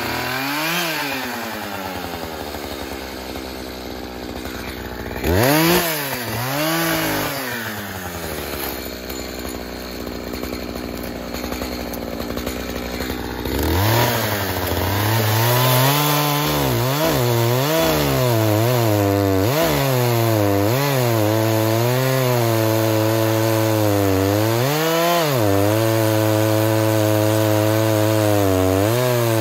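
Echo CS-4510 two-stroke chainsaw: blipped twice with the pitch rising and falling, left idling, then held at full throttle from about halfway through while bucking a log, the engine pitch dipping and recovering as the chain bites into the wood.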